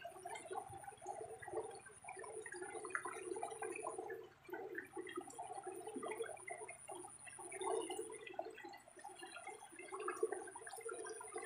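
Water gurgling and splashing in irregular bursts.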